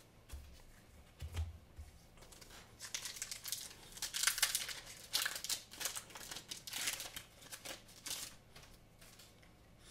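Foil wrapper of a Pokémon trading card booster pack being torn open and crinkled by hand. A few soft handling bumps come first, then a run of crinkling rustles from about three seconds in to about eight seconds in.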